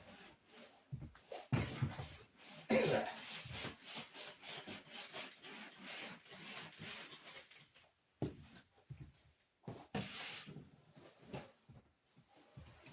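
A person coughing, seemingly from strong degreaser fumes, with the strongest bursts about one and a half and three seconds in. Scratchy rubbing and knocking from cleaning run through the rest.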